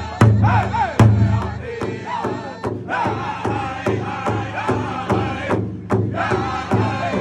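Powwow drum group: several singers strike one large hide drum with sticks in a steady beat while men and women sing a high chanting song over it.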